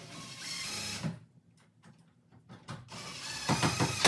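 Cordless drill driving in the screws that hold a device to its electrical box, in two short runs: one in the first second, a louder one from about three seconds in.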